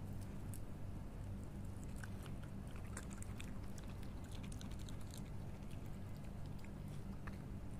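A wild canine chewing and crunching cooked pasta: a run of small sharp clicks and crunches, thickest in the middle, over a steady low hum.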